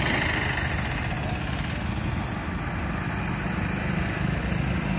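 A motor running steadily with a low rumble, and faint voices in the background.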